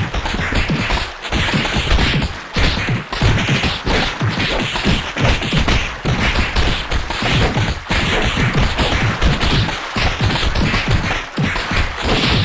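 A loud, unbroken barrage of sneezes, many short sharp bursts crowding one on top of another with no pause between them.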